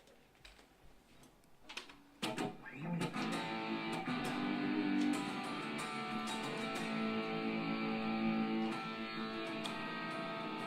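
A few faint clicks, then about two seconds in a guitar starts playing, its strummed chords ringing on with held notes.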